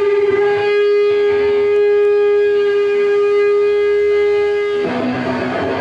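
Electric guitar holding one long, steady note through the amp. About five seconds in, the held note gives way to a played guitar riff as the song starts.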